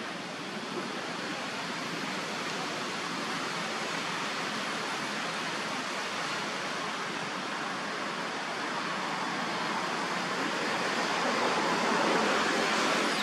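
Steady rushing of rain-swollen, muddy water, an even hiss without breaks that grows somewhat louder near the end.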